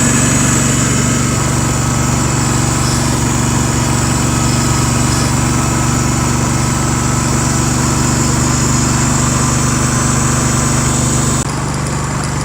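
Cub Cadet garden tractor engine running steadily under load while clearing snow. Near the end the sound changes abruptly, its upper hiss and whine dropping away.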